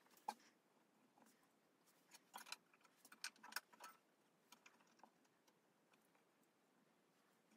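Near silence with scattered faint clicks and taps of a steel rule and a pen being handled against a wooden frame, a sharper click about a third of a second in and a cluster of taps between about two and four seconds in.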